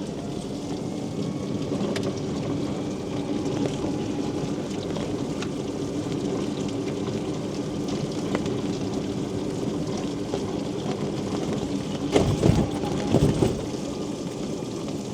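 Rain falling steadily, with fine pattering ticks, over the steady hum of a Quingo Toura Mk2 electric mobility scooter driving along. A few louder, brief rumbles come about twelve seconds in.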